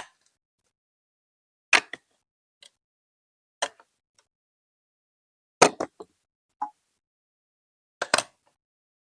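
Sharp clicks and knocks of hard plastic Lego Duplo pieces, about six separate strikes, some single and some in quick pairs or triples, one to two seconds apart with silence in between.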